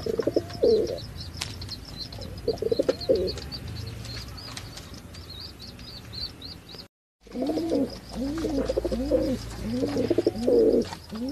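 Domestic pigeons cooing in a cage: two coo phrases in the first few seconds, then, after a brief dropout about halfway, a run of coos repeated one after another. A small bird chirps rapidly in the background through the first half.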